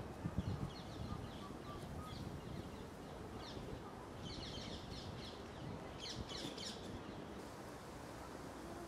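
Small birds chirping in short, quick runs of high notes, densest about halfway through, over a steady low background rumble.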